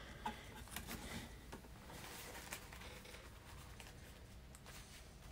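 Near silence: quiet room tone with a few faint ticks and soft rustles from light handling at the desk in the first couple of seconds.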